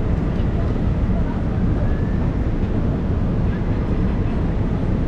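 Busy city street ambience: a steady low rumble of traffic with faint, indistinct voices of passers-by.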